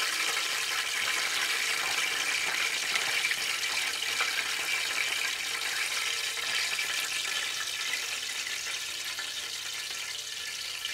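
Hot frying oil sizzling and bubbling around a battered fish fillet in a frying pan, still frying on the oil's retained heat with the burner off, as the fillet is lifted out with a slotted metal skimmer. The sizzle eases slightly toward the end.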